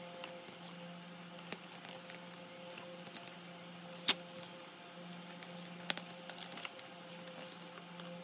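Pages of a hardcover photobook being turned by hand: paper rustles and soft ticks, with two sharp paper snaps about four and six seconds in, over a low background hum.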